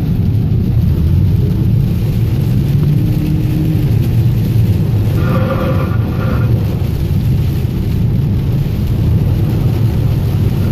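Steady low rumble of a car driving through a rainstorm, heard from inside the car. A brief pitched sound cuts in about five seconds in.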